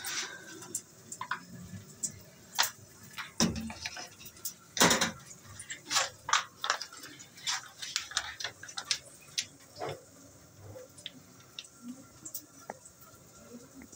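Irregular clicks, taps and knocks of food being prepared at a steel kitchen sink: a plastic serving tray being moved, sauce bottles squeezed onto burger buns and a utensil tapping as it spreads. The loudest knock comes about five seconds in.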